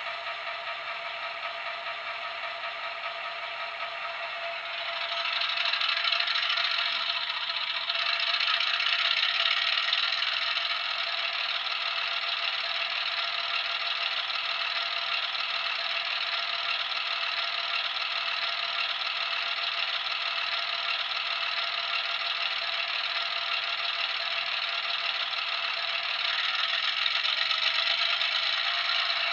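Sound-decoder recording of an EMD 6-645 diesel prime mover, a six-cylinder two-stroke, played through a model locomotive's small speaker, so it is thin with almost no bass. The engine runs steadily, gets louder about five seconds in and again about eight seconds in, eases slightly a few seconds later, and lifts a little again near the end.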